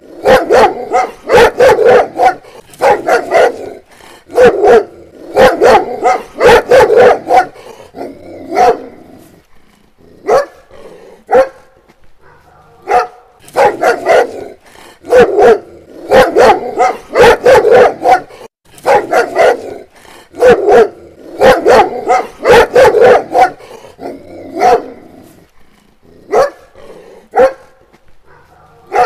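A dog barking over and over in quick runs of several barks, with short lulls between the runs.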